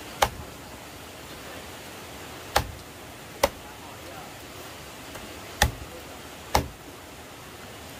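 Five sharp knocks at uneven intervals: one at the start, two close together around the middle and two more near the end, over a steady hiss.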